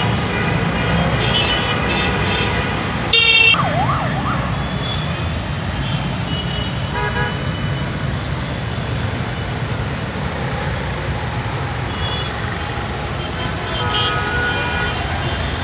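Busy city road traffic on a wet road: steady engine and tyre noise with scattered horn toots. A loud horn blast comes about three seconds in, followed at once by a short up-and-down siren wail.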